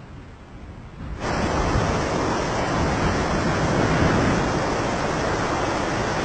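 Rushing wind buffeting the microphone, starting suddenly about a second in and staying loud and steady, over a low rumble.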